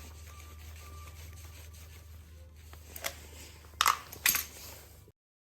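A steady low hum with a light click about three seconds in and two sharp knocks near four seconds, like parts or tools being handled; the sound cuts off abruptly about five seconds in.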